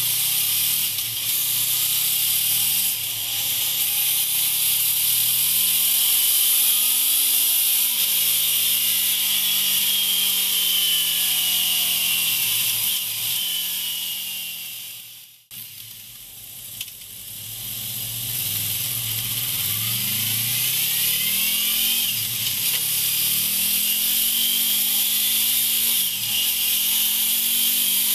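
Honda Crossrunner's V4 engine through a MIVV Oval slip-on exhaust, pulling hard with the revs climbing and dropping again and again as it goes up through the gears. Strong wind hiss sits over it, and the sound briefly falls away about halfway through.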